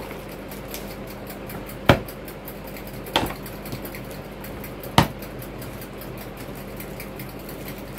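Thread spools being set into a plastic organizer box, with three sharp clacks about two, three and five seconds in and a few lighter ticks between.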